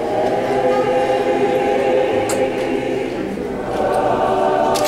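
Church choir singing in long held chords, moving to a new chord about three and a half seconds in.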